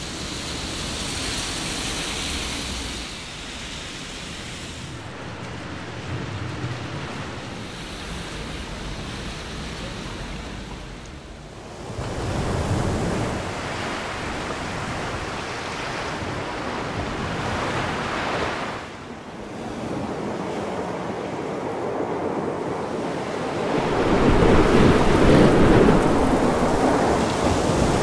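Heavy storm surf crashing and rushing, with wind buffeting the microphone. The sound changes abruptly three times and is loudest near the end.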